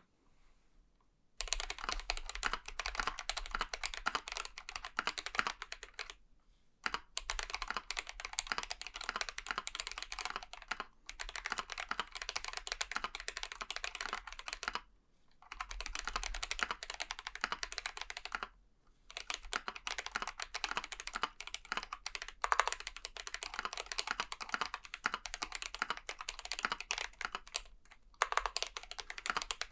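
Typing on a GMMK Pro mechanical keyboard with lubed Gazzew Boba U4T tactile switches, Durock stabilizers and PBT keycaps on a polycarbonate plate. A dense stream of keystrokes comes in runs of several seconds, broken by short pauses.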